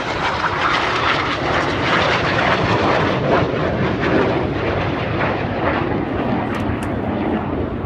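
Steady jet noise from two BAE Hawk T1 jets flying low through an opposition barrel roll, a dense rushing sound that holds at an even level.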